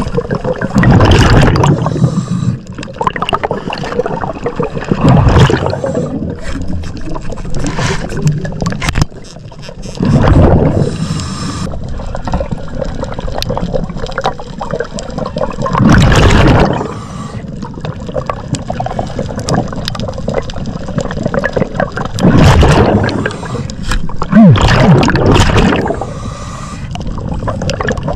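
Scuba diver's exhaled bubbles gurgling out of the regulator past an underwater camera housing: a loud rush of bubbles about every five or six seconds, in time with the diver's breathing, over a steady underwater hiss.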